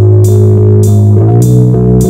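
Instrumental indie rock: electric bass and guitar with keyboard play sustained notes over a steady beat of hissing high hits about twice a second. The chord changes about one and a half seconds in.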